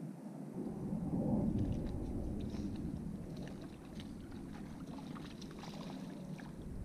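Water splashing and sloshing as a hooked trout is brought to a landing net in the shallows and rubber boots wade at the lake's edge, with scattered small splashes and ticks through the middle over a low rumble.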